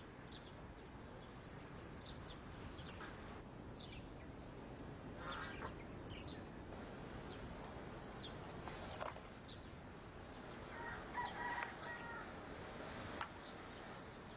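Outdoor ambience of birds chirping: short, high chirps scattered throughout over a steady background hiss, with a longer call a little after the middle.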